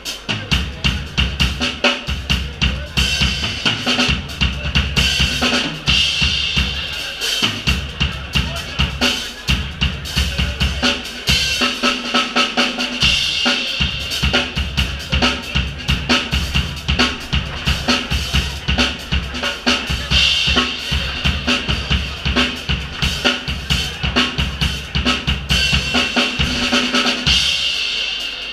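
Live drum kit played over a drum-and-bass backing track: kick, snare and rimshot hits in a steady groove on top of a deep bass line, which drops out briefly about halfway through.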